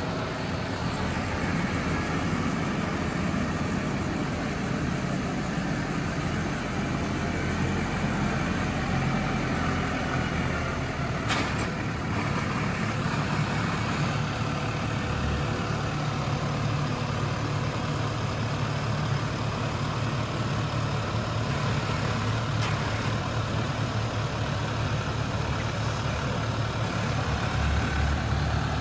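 Case IH Farmall 95C tractor's diesel engine running steadily while the tractor works the front-loader manure grapple, its note shifting about halfway through. Two sharp knocks are heard, one near the middle and one later on.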